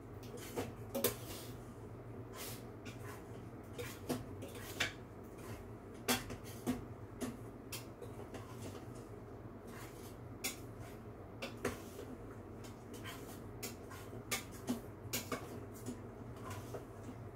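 A spoon clinking and scraping in the stainless-steel inner pot of an Instant Pot as soup is stirred: irregular sharp clinks, one or two a second, over a low steady hum.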